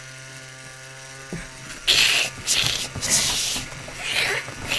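Small electric cutting tool's motor humming steadily, then from about two seconds in a series of harsh rasping bursts as it cuts through a stuffed toy to sever the head.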